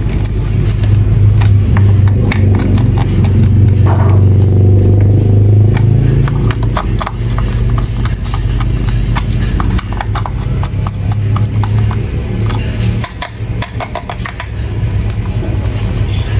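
Battery-powered plastic toy train running: a steady low motor hum with irregular plastic clicks and rattles.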